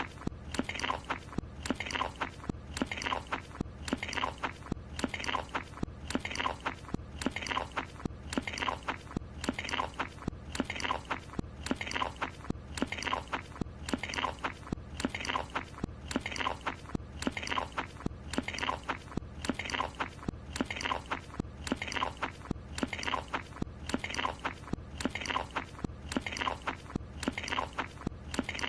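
Cartoon sound effect of a character chewing and munching a croissant, one short clip looped over and over about once a second.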